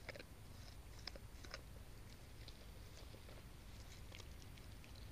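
Dog chewing a meat treat: faint, scattered crunches and clicks of its jaws, a few close together in the first second and a half, then sparser.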